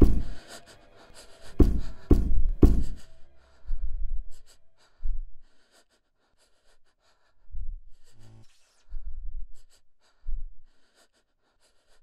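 A series of heavy, echoing thuds: four loud ones in the first three seconds, then fainter ones a second or two apart, with a brief low pitched sound about eight seconds in.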